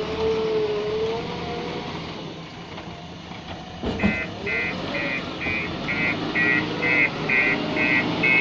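Diesel engine of a heavy earthmoving machine running with its pitch wavering. A single knock sounds about four seconds in, and then a reversing alarm starts beeping steadily at about two to three beeps a second.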